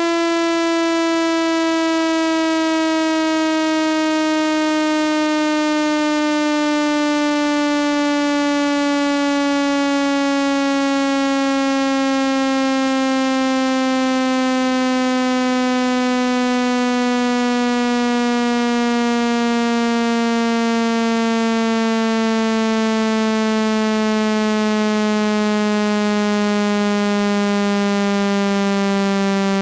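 Synthesized water-eject tone for driving water out of a phone speaker: one steady, buzzy tone rich in overtones, slowly falling in pitch by close to an octave.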